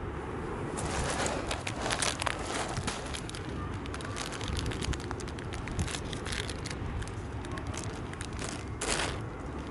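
Sea surf on a shingle beach: a steady low rumble of waves with a dense, irregular crackling of pebbles rattling and hissing as the water drains back through the stones. The crackling sets in about a second in and swells again near the end.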